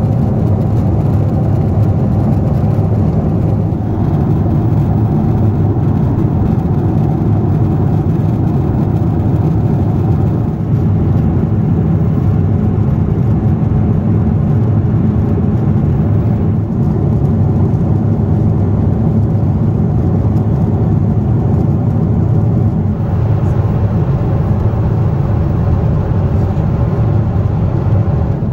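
Steady cabin noise of a Boeing 747-8 in cruise flight: a low, even rumble of engines and rushing air with a faint hum in it, shifting slightly in tone a few times.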